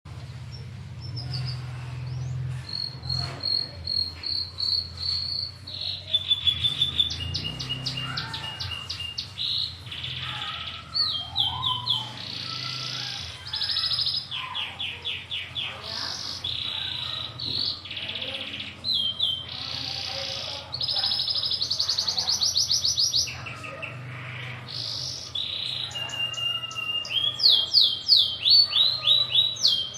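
A brown local domestic canary singing a long, continuous rolling song: rapid high trills and runs of repeated notes, alternating with buzzy phrases, with hardly a pause.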